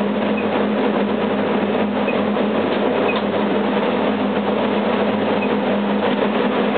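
Corn dryer machinery running steadily: an even, loud mechanical drone with a constant low hum underneath.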